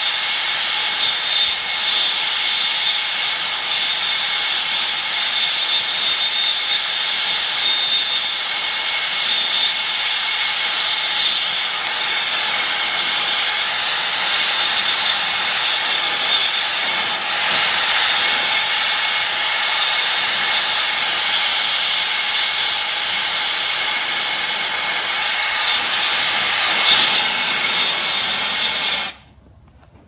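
Brazing torch flame hissing steadily while held on a copper tube past cherry red, overheating the copper until the tube end melts. The hiss cuts off suddenly about a second before the end.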